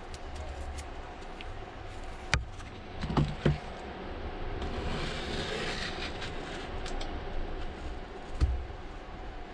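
Small repair tools clicking and tapping against the iPad mini 4 housing a few times, with a stretch of scraping about five seconds in as the housing is cleaned of old adhesive, over a steady low hum.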